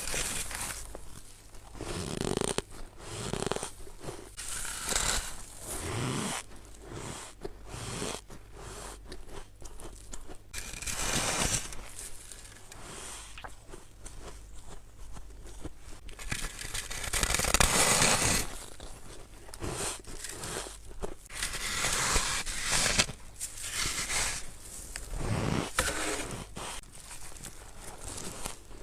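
Freezer frost being bitten and crunched close to the microphone: a string of crisp, crunching bites, repeated every second or two, the loudest about 17 to 18 seconds in.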